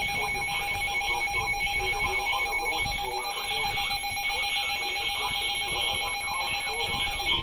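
Electronic emergency alert tone, a loud rapidly pulsing beep held without a break, signalling an incoming severe thunderstorm warning.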